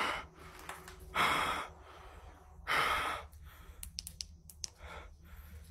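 A man's heavy breathing close to the microphone: a run of loud breaths about every second and a half, with a few faint sharp ticks about four seconds in.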